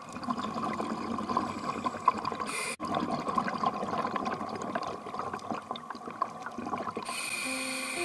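Underwater bubbling and crackling, consistent with a scuba diver's exhaled regulator bubbles near the camera, made of many small pops that rise and fall in loudness. Soft music runs faintly underneath.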